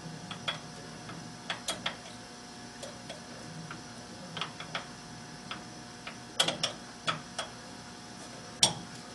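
Sharp metallic clicks and ticks in irregular small clusters as a metal lathe setup is worked and tightened by hand, with the lathe not running; the loudest click comes near the end.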